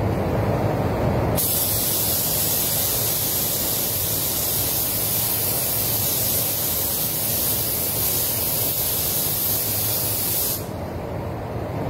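Gravity-feed spray gun hissing as it lays a mist coat of paint onto a car panel, starting about a second in and cutting off near the end. A steady, lower rush of air runs under it throughout.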